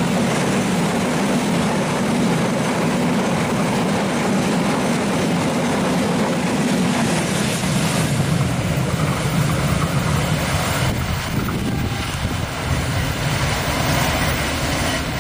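Freight train's loaded flat wagons rolling past on curved track: a steady rumble of wheels on rails, easing a little near the end as the last wagon goes by.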